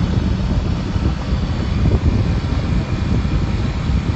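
Wind buffeting the phone's microphone: a loud, steady, fluttering low rumble.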